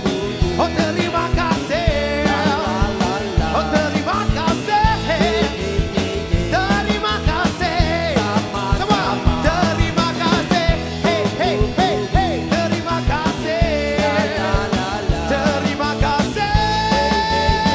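Live band playing an up-tempo pop-rock song with drums, bass and electric guitars, a lead electric guitar carrying a bending, wavering melody over a steady beat and holding one long note near the end.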